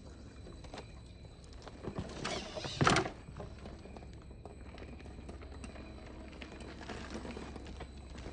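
A 1/10-scale RC4WD Trail Finder 2 rock crawler scrabbling over rock as it tips off a boulder ledge, with a loud clatter and thump of the truck landing on rock about three seconds in.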